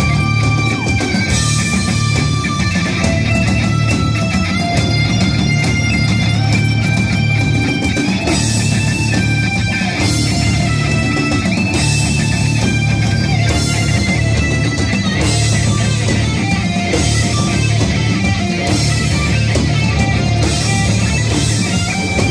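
Heavy metal band playing live through amplification: electric guitars hold a slow melodic line over a dense bass and drum bed.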